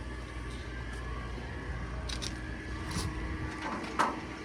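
A few clicks and knocks from handling a metal access door on an aircraft ground air-conditioning cart, the loudest about four seconds in, over a steady low hum.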